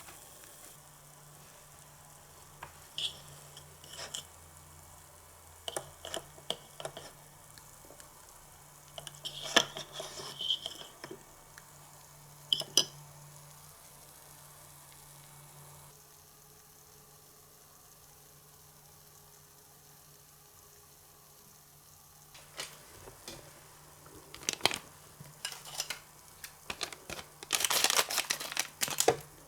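Small clicks, taps and scrapes of miniature plastic toy kitchen utensils and dishes being handled, some with a short light clink. A dense crackling, rustling run comes near the end.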